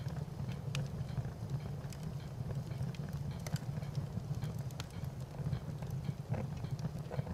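Wood fire burning: a steady low rumble with irregular sharp crackles and pops.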